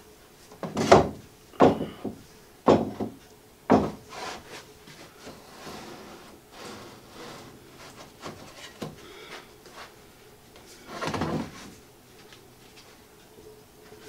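Wooden router sled being shoved and bumped along its wooden rails by hand: four short knocks and scrapes about a second apart, then a longer scrape near the end. The router motor is not running; it has not been plugged in.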